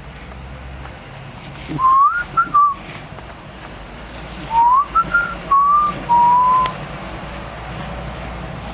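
A person whistling a short melody in two phrases: each starts with an upward glide and moves through a few notes, and the second ends on a held note. A steady low background hum runs underneath.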